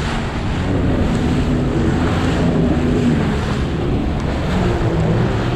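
Jet ski engine running over choppy water, its pitch rising and falling a little, with heavy wind buffeting the microphone.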